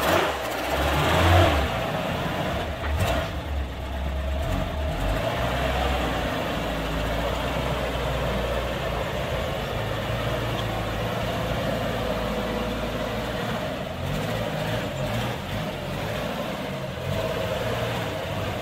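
Toyota 2F straight-six petrol engine of a 1976 FJ40 Land Cruiser running steadily at low revs as the truck is driven slowly, briefly a little louder about a second in.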